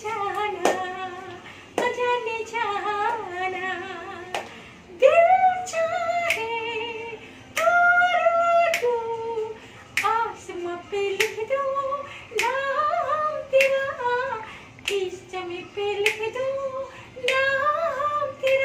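A woman singing solo with no instruments, holding long, wavering notes, with sharp taps keeping time about once a second.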